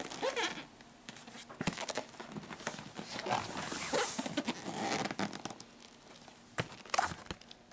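Cardboard and paper rustling and sliding as a box is handled and a folded printed leaflet is taken out and opened, with irregular scrapes and a sharper crackle near the end.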